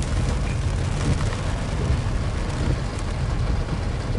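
Car driving in the rain, heard from inside the cabin: a steady low rumble of road and engine noise under the hiss of rain on the car.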